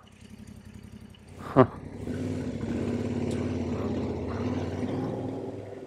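Yamaha Ténéré 700's parallel-twin engine pulling away at low revs. It comes in about two seconds in, runs steadily, and eases off near the end.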